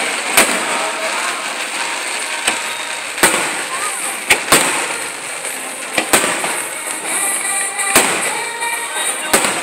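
Aerial fireworks shells bursting: sharp bangs at irregular intervals, about nine in all, some in quick pairs, over a steady background of voices.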